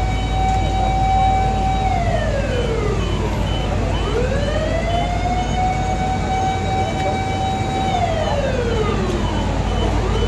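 Fire truck siren wailing: it holds a high note for about two seconds, slides down over about two seconds, then climbs back up and holds again, the cycle repeating. A steady low rumble runs underneath.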